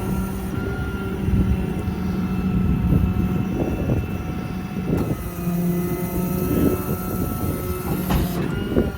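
Truck-mounted hydraulic crane being lowered, its hydraulic pump whining steadily over the running 6.7 Cummins diesel, with a couple of sharp clicks about three and five seconds in.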